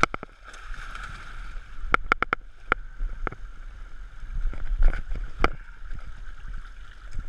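Shallow river water rushing over rocks, with splashing as a large chinook salmon thrashes in the shallows at the start. A run of sharp clicks and knocks follows about two seconds in, with a few more around five seconds.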